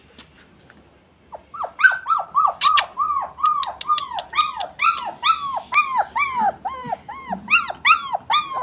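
German Shepherd puppy crying: a quick run of short, high cries, about three a second, each rising and then falling in pitch, starting about a second in.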